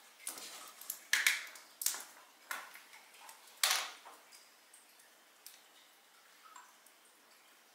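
Small clicks and taps of bar-top handling: the cap being twisted off a cranberry juice bottle and set down, and a jigger being picked up. About half a dozen sharp clicks come in the first four seconds, then only a few faint ones.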